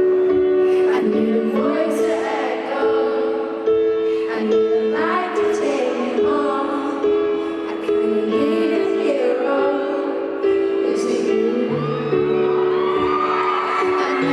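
Live performance of a pop ballad: a woman singing over long held accompaniment chords.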